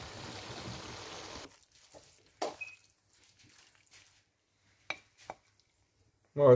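Steady hiss of daal cooking in a wok over a gas flame, cutting off suddenly about one and a half seconds in. A few faint taps and scrapes of a wooden spatula on the pan follow.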